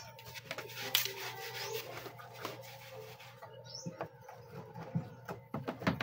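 Scattered clicks and light scraping of plastic parts as the base panel of a washing machine is handled and lifted.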